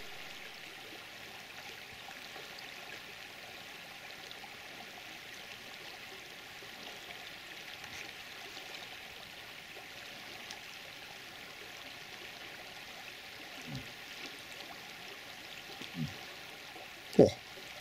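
Steady rush of flowing water. Near the end come three short low sounds, each louder than the one before.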